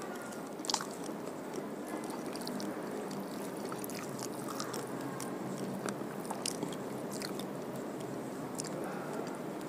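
A person chewing a mouthful of rice and fish curry close to the microphone, with small wet mouth clicks and fingers picking food off the plate; one sharper click comes under a second in.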